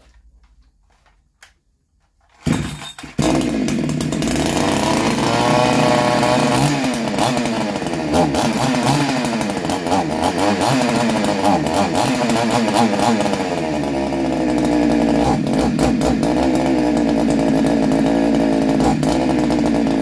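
A 62cc Chinese chainsaw's two-stroke engine starts about three seconds in and keeps running on its refitted Titan Tech ignition coil. It is revved up and down repeatedly, then runs more steadily near the end.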